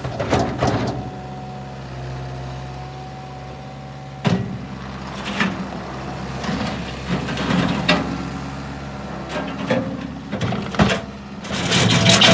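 Bobcat S185 skid steer's turbo diesel engine running, with several sharp clanks along the way. The engine grows louder near the end.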